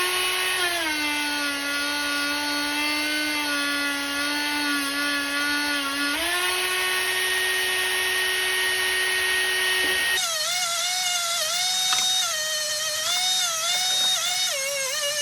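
Ryobi rotary tool spinning a small abrasive tip against stainless steel: a steady high whine that sags in pitch while the tip is pressed in and rises again when eased off. About ten seconds in it changes to a higher whine that dips repeatedly as the tip is worked over the metal.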